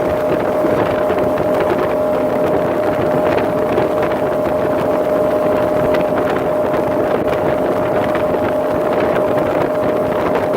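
Motorboat running steadily under way, its engine drone carrying one steady tone over the rush of water, with wind buffeting the microphone.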